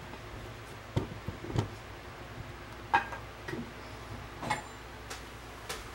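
Light knocks and clicks, about six of them and the loudest about three seconds in, as things are handled on a kitchen counter.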